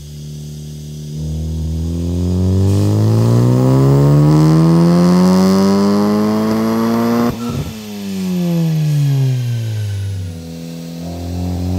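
Honda Civic Type R FK8's turbocharged 2.0-litre four-cylinder running through a full titanium catback exhaust. It idles for about a second, then the revs climb steadily for about six seconds, cut off abruptly and fall back toward idle, and start climbing again near the end.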